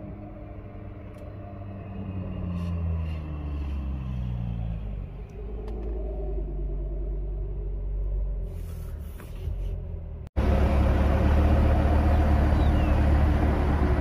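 Car engines running. One engine shifts in pitch as the cars move slowly around a parking lot. After a sudden cut about ten seconds in, a louder, steady idle follows.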